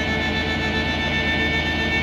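Background music with sustained, steady tones, violin-like.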